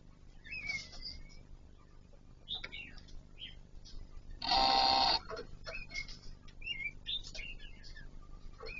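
Short chirps and calls of laughingthrushes, plausibly Kon Ka Kinh laughingthrushes, scattered throughout, including a gliding call about a second in. About halfway through, a loud buzzing tone lasts about half a second.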